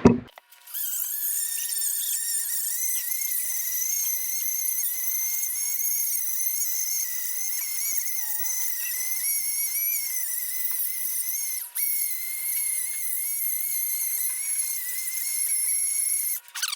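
A hand-held power tool running steadily with a high-pitched, slightly wavering whine, as when an abrasive pad is used to clean the gasket surface of a Ford 4.0 V6 cylinder head. It dips briefly about two-thirds of the way through and stops just before the end.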